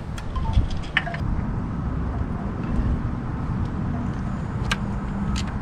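Small clicks of metal nuts and washers being threaded onto bolts by hand, over a steady low rumble with a faint hum.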